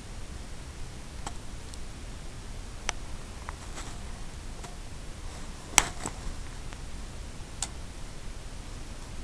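Steady hiss with a handful of short, sharp clicks scattered through it, the loudest about six seconds in.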